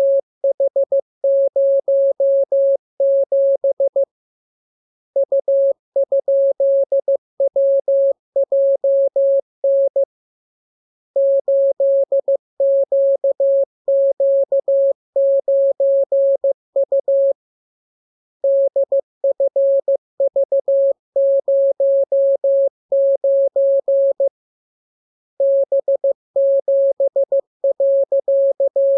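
A Morse code practice tone, a single mid-pitched beep keyed on and off in dots and dashes, sending groups of characters for receiving practice. The runs of code break off for about a second every six or seven seconds.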